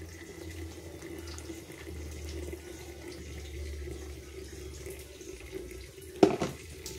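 Hot water poured in a thin stream from a metal kettle onto ground coffee in a paper filter, a steady trickle. A single loud knock sounds near the end.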